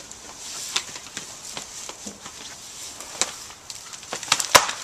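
Crackling, rustling and scraping with scattered clicks as a long, curved flexible strip is lifted and swung against the vines, with a sharp knock about four and a half seconds in.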